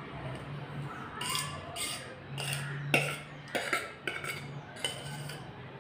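Metal spoon scraping and clinking against a pot while scooping cooked sago batter: several short scrapes, with one sharp clink about three seconds in.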